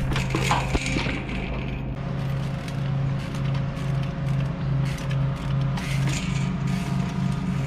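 Trials bike hopping up stone steps: sharp clicks and clanks of the wheels and chain landing, most of them in the first second. Under them runs a music track with a steady pulsing bass beat.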